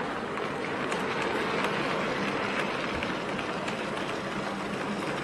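Model railway goods train of four-wheeled wagons rolling past on the layout's track: a steady rumble of small wheels on the rails with a few light clicks.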